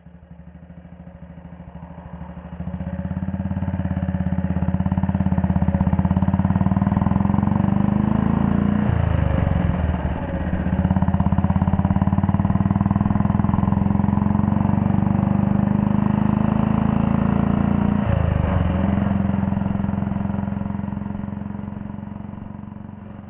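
1939 Red Panther Model 40 single-cylinder motorcycle engine pulling under load, heard from the rider's seat. The note rises, then drops twice as he changes up through the gears. It grows louder over the first few seconds and fades away near the end.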